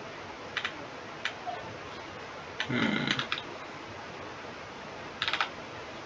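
Computer mouse clicking, with short runs of rapid ticks from its scroll wheel. A few single clicks come near the start, a fuller, heavier cluster about three seconds in and another quick run about five seconds in, over a steady hiss of microphone noise.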